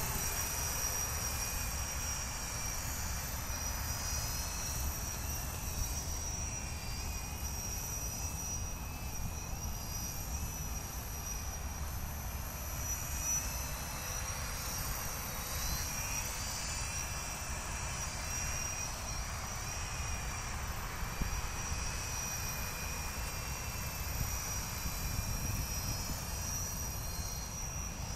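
Electric multirotor drone on a MultiWii flight controller, its motors and propellers whining steadily in flight with a slightly wavering pitch, over a steady low rumble.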